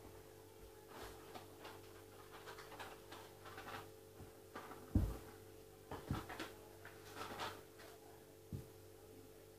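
Faint off-camera rustling and handling noises with a few soft knocks, the loudest about five seconds in, over a steady low hum.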